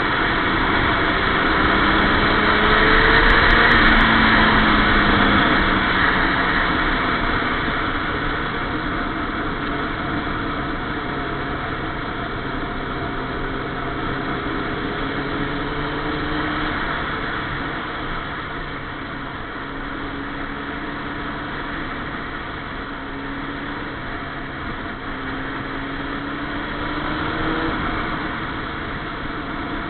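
Sport motorcycle engine running at speed under heavy wind noise on a bike-mounted camera. The engine pitch climbs slowly and falls back several times as the bike is ridden through the corners, and the wind is loudest a few seconds in.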